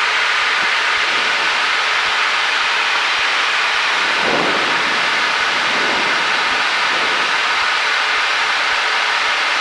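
Steady drone of a Cessna 172's engine and propeller with air rushing past, heard inside the cockpit in level flight. There is a brief low swell about four seconds in.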